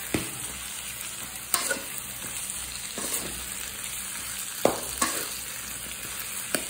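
Steel spatula stirring and scraping potato pieces and onion-tomato masala around a metal kadai while they fry with a steady sizzle. The spatula scrapes or knocks sharply against the pan several times.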